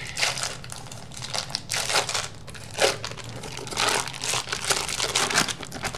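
Foil wrapper of a block of cream cheese crinkling as it is peeled open by hand, in irregular bursts.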